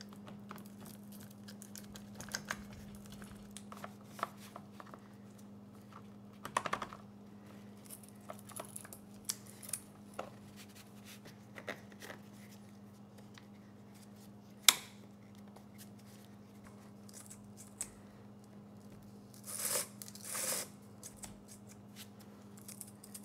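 Small clicks and clatters of a Poulan Pro chainsaw's bar, chain and side cover being handled and fitted back on, with one sharp click about two-thirds through and two short rasps near the end. A faint steady hum sits underneath.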